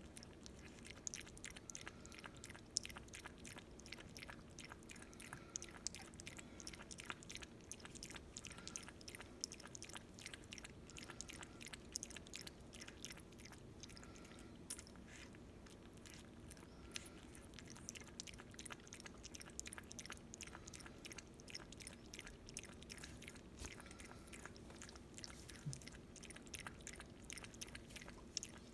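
Chihuahua puppy lapping water from a stainless steel bowl: a continuous run of faint, quick wet tongue clicks, several a second.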